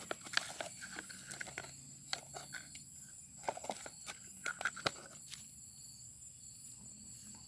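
Footsteps with irregular rustling and crackling, dying away about five and a half seconds in.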